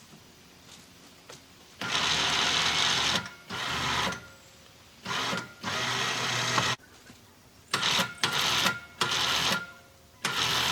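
Kawasaki Mule utility vehicle's engine revving in a series of short bursts, starting about two seconds in, as it is eased back and forth.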